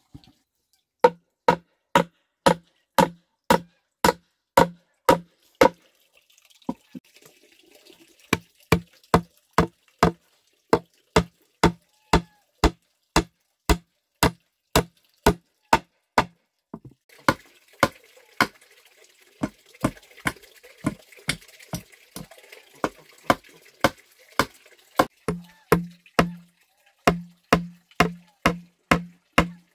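Claw hammer driving nails into a wooden plank in steady blows, about two a second, each ringing with a low knock from the board. The blows stop briefly about a quarter of the way through, then carry on.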